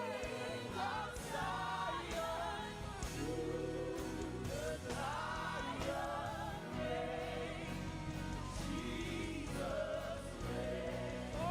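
Gospel worship music: voices singing long, wavering held notes with vibrato over steady instrumental backing.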